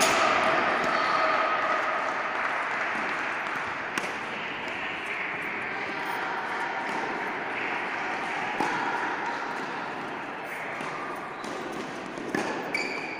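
A few sharp pops of a tennis ball struck by rackets and bouncing on an indoor court, spaced several seconds apart, over a steady background rush.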